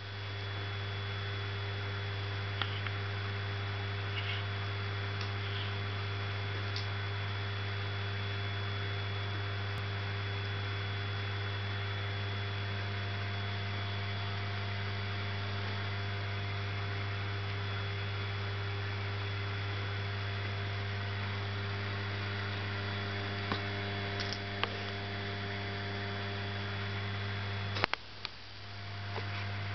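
Steady low electrical mains hum with a faint hiss and a few soft clicks. Near the end a sharp click is followed by a brief drop in the hum, which then builds back.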